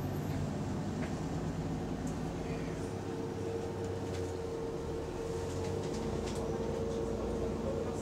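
Double-decker bus with an exhaust leak running along the road, heard from inside on the upper deck: a steady engine rumble with a constant whine over it.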